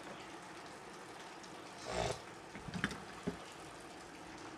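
Faint handling noises as the parts of a disassembled electric hand planer are moved on a wooden workbench: a short scrape about two seconds in, then a few light clicks and knocks.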